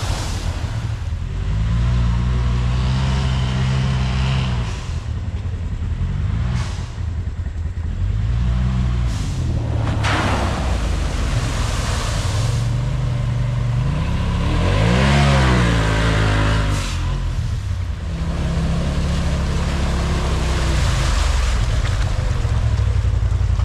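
Polaris RZR Turbo side-by-side's engine revving up and down about five times, the hardest rev about two-thirds of the way through, as it drives through a shallow creek with water splashing and spraying.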